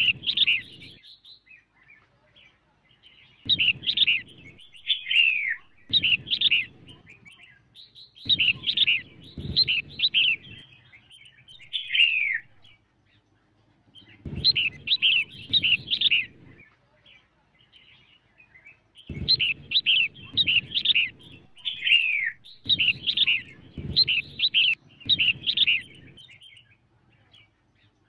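Female red-whiskered bulbul calling: short phrases of rapid chirps and down-slurred notes, repeated every second or two with brief pauses. This is the female call that bird keepers play to rouse male bulbuls.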